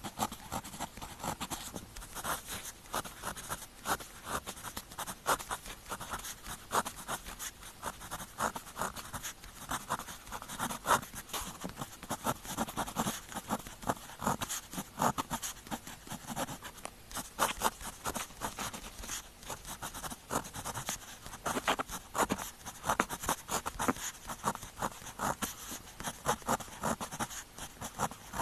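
Pen tip writing on paper: a continuous run of short, irregular scratching strokes.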